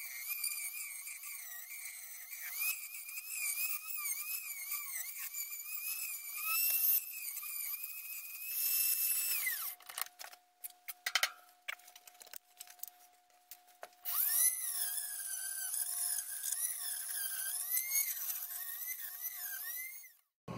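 Dremel rotary tool with a cutoff wheel running at high speed, cutting through glue and plastic; its high whine wavers in pitch as the wheel bites. The whine drops away about nine seconds in, a few seconds of scattered clicks follow, and it starts again about fourteen seconds in until it cuts off near the end.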